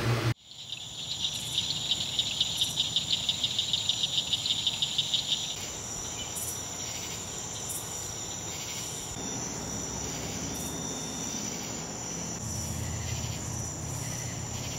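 Night insects calling: a loud, rapidly pulsing insect call for roughly the first five seconds, over a steady high-pitched cricket trill.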